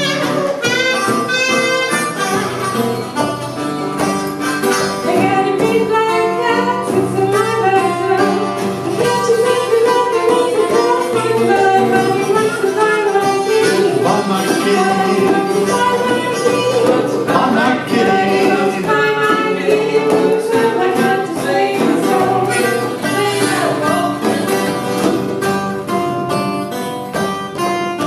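Live acoustic blues band: acoustic guitar and djembe hand drum under a harmonica, a buzzing metal kazoo (kazobo) at the start, and a voice singing.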